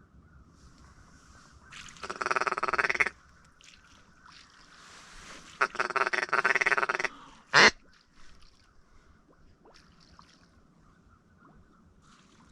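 Duck quacking: two loud runs of rapid quacks, the first about a second long and the second about a second and a half, then one short sharp quack a little later.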